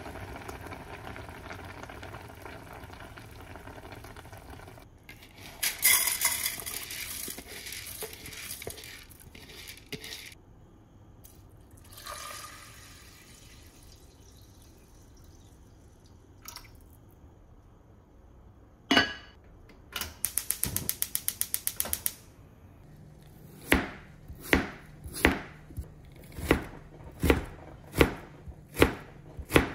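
A pot bubbling on the hob, then water poured into rice in a rice-cooker inner pot, and a rapid run of clicks. From about three-quarters of the way through, a kitchen knife slices a potato into thin strips on a cutting board, with sharp knocks about once every three-quarters of a second.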